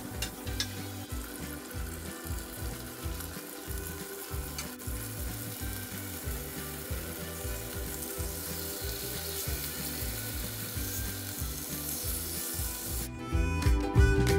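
Chicken breasts and diced onion sizzling as they fry in oil in a non-stick frying pan, with a few light clicks of metal tongs moving the pieces. Background music plays underneath and gets louder near the end.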